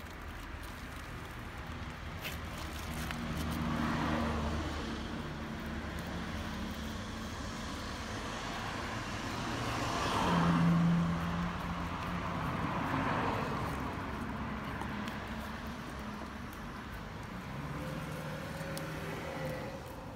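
Road traffic going by: cars swell and fade away three times, the loudest about ten seconds in, over a low steady hum.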